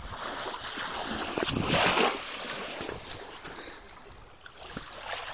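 Shallow water splashing and lapping at the water's edge, loudest for a moment about two seconds in.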